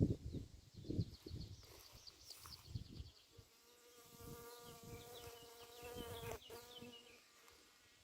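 Flying insect buzzing: a faint steady hum that starts about three seconds in and lasts about four seconds. Thin high bird chirps sound over it, and a few soft low thumps come in the first three seconds.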